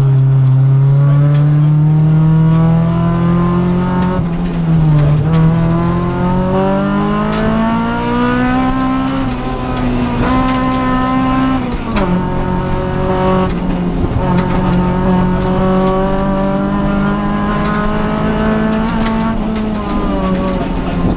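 Honda Civic rally car's engine at speed, heard from inside the cabin: the note climbs with the revs and drops sharply a few times, about four seconds in, about twelve seconds in and near the end.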